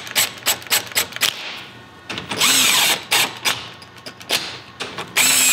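Cordless power tool spinning a socket in two short bursts, about two seconds in and again near the end, each whine rising then falling in pitch, as it lightly snugs down the differential's bearing cap bolts. Sharp clicks and clanks of metal tools come between the bursts.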